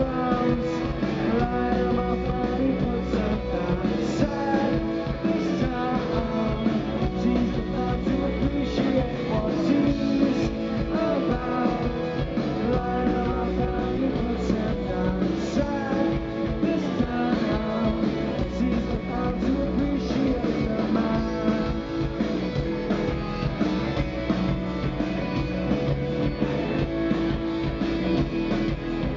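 Live rock band playing: electric guitars over bass guitar and a drum kit, a full, steady band sound with no break.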